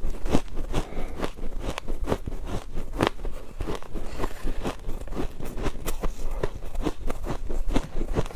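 A person biting and chewing ice: a quick, uneven run of sharp crunches and cracks, several a second.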